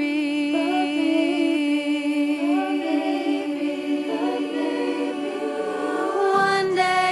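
Background music of voices singing in long held notes, with a second line moving above the sustained low note; a deeper held tone comes in near the end.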